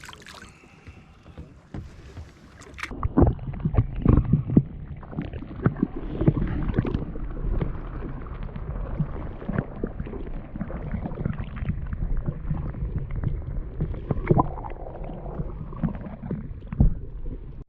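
Irregular knocks and rubbing on a small fishing boat, with water sloshing against the hull, louder and busier from about three seconds in.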